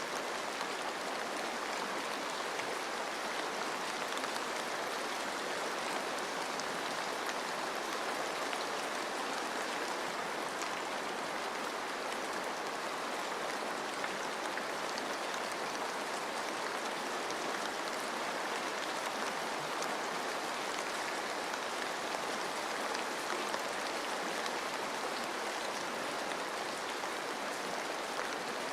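Steady rain with running water: an even rushing hiss with fine raindrop patter through it.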